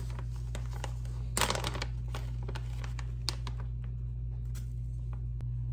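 Plastic packaging crinkling and rustling in the hands as a bag of dried anchovies for soup stock is opened and handled, in irregular short rustles with a louder burst about a second and a half in.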